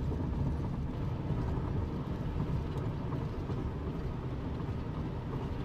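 Steady low rumble of a vehicle driving, heard from inside.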